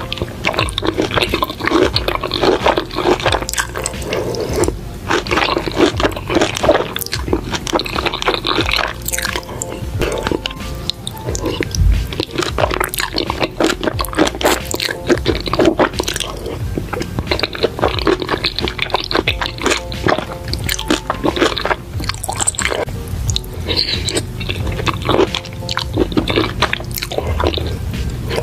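Background music with close-up eating sounds of creamy spaghetti: wet slurping of noodles and chewing, with many small mouth clicks throughout.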